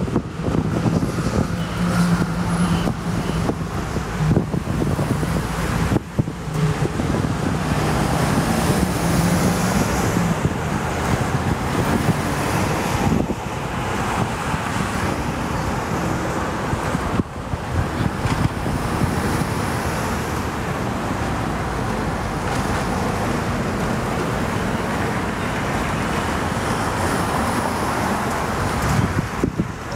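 Steady road traffic noise from passing cars, with a vehicle engine's low hum during roughly the first ten seconds.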